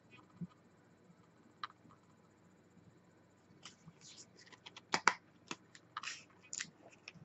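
Irregular small clicks and taps from hands handling vape gear (the e-liquid bottle and atomizer). They start about three and a half seconds in and are loudest about five seconds in.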